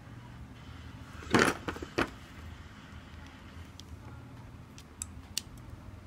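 Handling noises from fitting an RJ45 plug onto an Ethernet cable and picking up the crimping tool. A brief scrape about a second in is the loudest sound, followed by a sharp click at two seconds and a few faint light clicks later, over a low steady hum.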